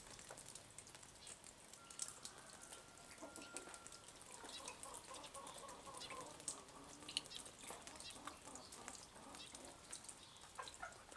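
Faint farmyard ambience: domestic fowl clucking and calling, with scattered light clicks and ticks.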